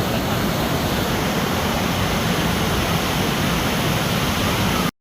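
Floodwater of a river overflowing in a flash flood, rushing past as a steady, loud roar of water. It cuts off abruptly just before the end.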